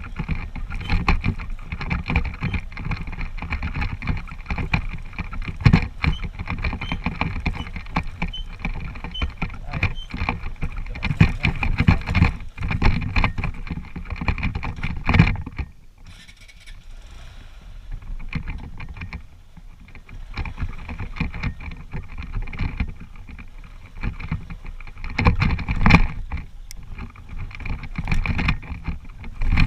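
Honda CG125's single-cylinder four-stroke engine running as the motorcycle rides a rough dirt trail, with frequent knocks and rattles from bumps. The sound drops sharply about halfway through and comes back up some eight seconds later.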